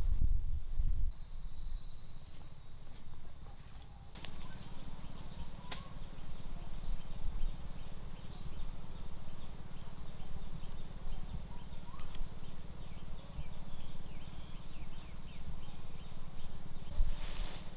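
Jungle ambience: a high, steady insect drone for about three seconds, then faint, repeated bird and insect chirps with a couple of short whistled bird calls over a low, steady rumble. A brief rustle comes near the end.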